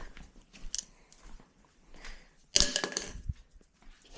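Scattered clicks and knocks from someone moving about and handling hard objects, with one louder, sharper knock a little past halfway.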